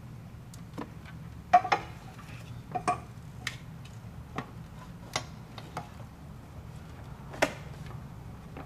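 Scattered clicks and knocks as a motorcycle fuel tank is handled and seated onto the frame, with its hose and plug connections. The loudest is a quick pair of knocks about a second and a half in, with another sharp one near the end, over a low steady hum.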